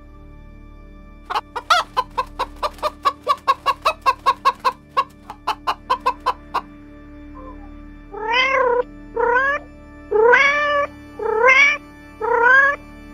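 A rooster clucking in a fast run of short clucks for about five seconds. After a pause, a cat meows five times, each meow about half a second long.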